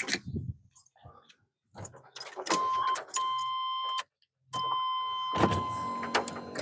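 Keys jangling and clicking, then a steady electronic warning tone from the 1990 Chevy C1500's dash, like a key-in-ignition or door-open chime. It sounds for about a second and a half, breaks off briefly, and comes back.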